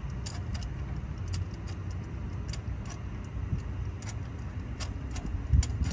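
Light metallic clicks and clinks of hand tools at irregular spacing while the last spark plug is being changed, over a steady low rumble, with a heavier thump near the end.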